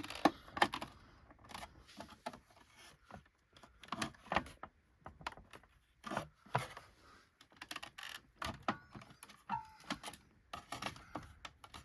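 Irregular plastic clicks, knocks and rattles as the cover on the underside of a Hoover WindTunnel upright vacuum is pulled down and worked loose by hand.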